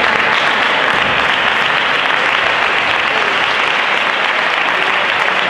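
Spectators applauding steadily: a dense, even clapping.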